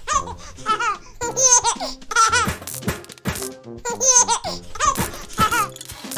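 Cartoon baby laughing and giggling in repeated bursts, with background music underneath.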